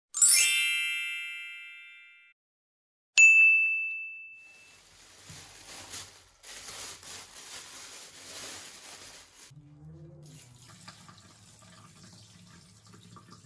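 Two chime sound effects: a bright many-toned chime at the start and a single clear ding about three seconds in, each ringing out. After that, faint rustling of a plastic bag and a kitchen tap running into a stainless steel sink.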